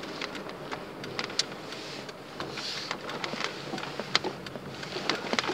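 Steady road and engine noise inside a car's cabin, with many irregular light clicks and rattles throughout.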